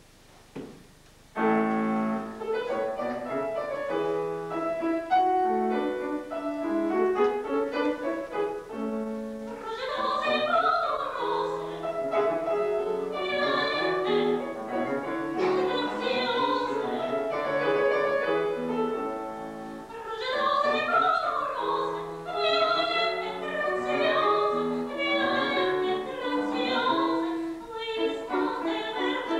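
A grand piano starts its introduction about a second and a half in. A woman's operatic voice comes in about ten seconds later, singing with vibrato over the piano accompaniment.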